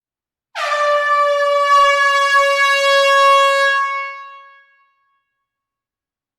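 Air horn sounding one steady blast of about three seconds in a closed room, then dying away with the room's echo.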